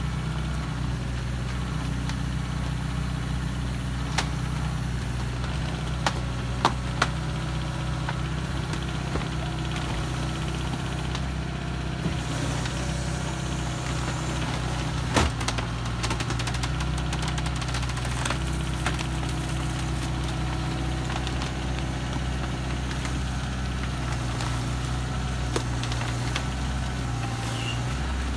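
Hyundai 140LC-9A crawler excavator's diesel engine running steadily while the machine works its boom and thumb, its note shifting a little a few times. A few sharp knocks come through over it, the loudest about fifteen seconds in.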